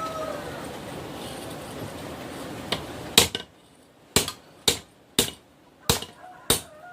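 A run of about seven sharp, ringing metal-on-metal strikes, about half a second apart over the second half. Before them a steady rushing noise plays, and it cuts off suddenly after the first loud strike.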